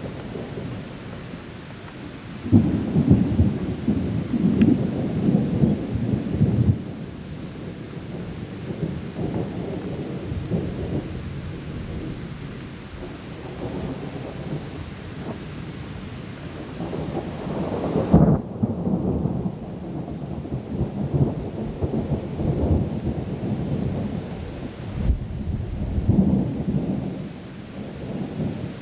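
Thunder rolling over steady rain. A long rumble comes a few seconds in, another builds to a sharp peak a little past halfway and rolls on, and a shorter one follows near the end.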